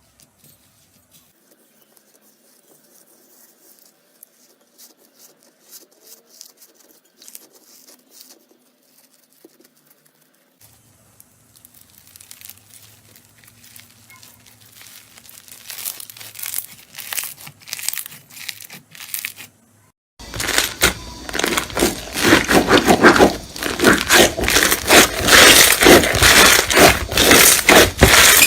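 Slime being squeezed and pressed by hands, making crackling and crunching sounds. The crackles start faint and sparse and grow louder. After a short break about two-thirds of the way in, they become loud and rapid.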